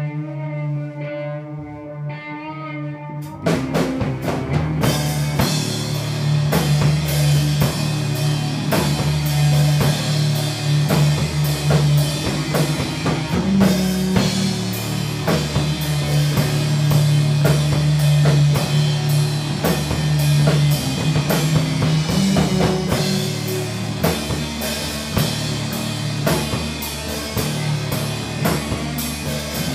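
Rock band rehearsal recording: a wavering held note, then drums and the full band come in about three and a half seconds in and play on.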